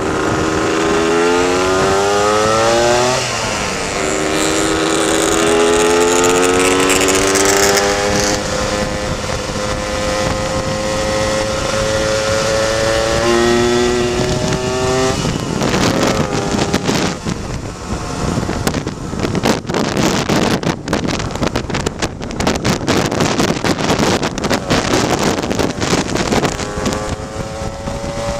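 Lambretta scooter's two-stroke engine pulling through the gears. Its pitch rises steadily and drops at the gear changes about three and thirteen seconds in. From about halfway the engine note gives way to wind buffeting the microphone, and the engine comes back faintly near the end.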